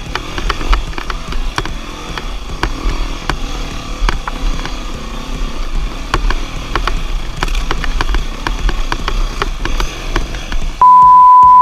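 Beta four-stroke enduro dirt bike running on rough single track, with frequent sharp knocks and clatter over the engine. Near the end a loud steady beep cuts in for about a second.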